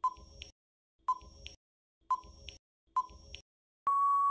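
Quiz countdown timer sound effect: four short tick-beeps about a second apart, then a longer steady beep near the end as the timer runs out.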